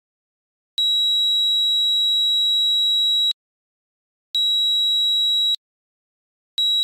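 Buzzer of a homemade IR flame-sensor fire alarm sounding a steady high-pitched tone in three separate beeps: the first about two and a half seconds long, the second about a second, and the third starting near the end. The alarm is triggered each time a lighter flame reaches the sensor.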